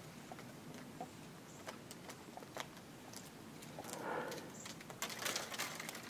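Pileated woodpecker pecking into a tree trunk, excavating and knocking bits of bark and wood loose: scattered, irregular taps, sparse and faint at first, then coming faster and louder about five seconds in.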